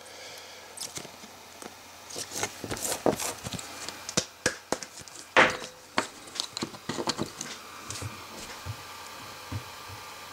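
A trading card and a clear plastic card holder being handled: a run of light clicks, taps and scrapes of plastic on plastic and on the table as the card is fitted into the holder and set upright in a stand. The loudest click comes a little over five seconds in, and the taps thin out near the end.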